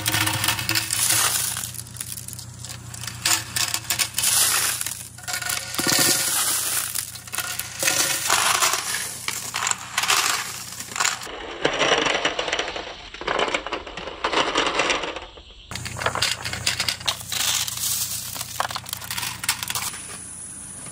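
A mass of marbles rolling and clattering down a marble run: a dense stream of clicks and rattles that swells and eases in surges.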